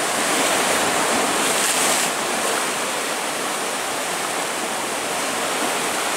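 Sea surf breaking and churning over shore rocks: a steady rushing wash of white water.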